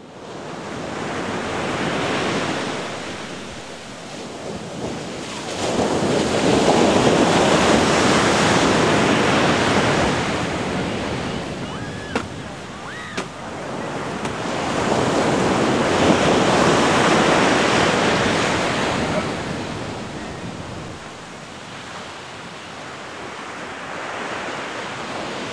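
Ocean surf breaking and washing up a sandy beach, a steady rushing that swells and fades in three slow surges as each wave comes in.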